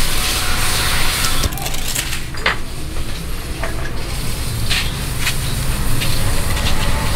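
Black adhesive tape being pulled and pressed onto the edge of plastic mesh: a rasping hiss for about the first second and a half, then a few short crackles as the tape is handled. A low rumble runs underneath.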